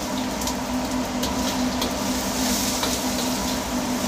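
Steady mechanical roar and hum of a commercial wok stove's burner and blower. Faint crackles come from scallion and ginger frying in oil in the iron wok.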